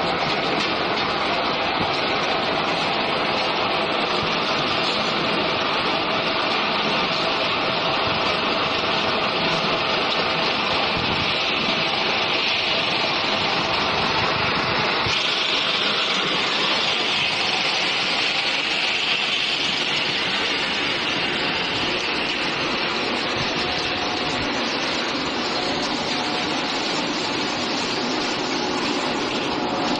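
Steady mechanical noise of a potato chip processing line, its stainless-steel mesh-belt conveyors running as slices drop from one belt to the next, with a brighter hiss for a few seconds about halfway in.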